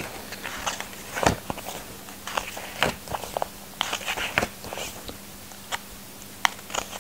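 A softcover children's picture book being opened and its pages turned by hand: scattered short paper clicks and rustles.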